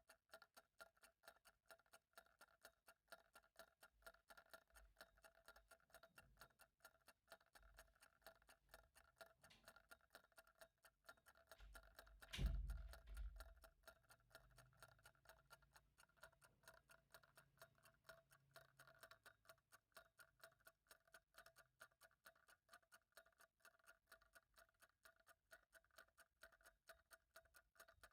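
Faint clock ticking steadily, each tick evenly spaced with a slight ring. About twelve seconds in there is one louder, dull thump.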